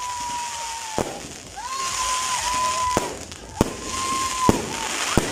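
Aerial fireworks: three long whistles, each cut off by a sharp bang as the shell bursts, and a further bang near the end.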